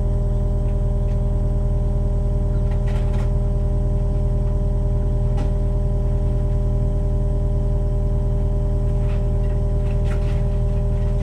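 Diesel excavator engine running at a steady speed, a constant hum with several fixed pitches. A few faint knocks of stone and rubble falling come through as the cottage wall is pulled down.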